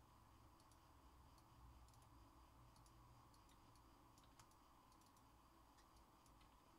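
Near silence with faint, irregular clicks of typing on a computer keyboard over a low room hum.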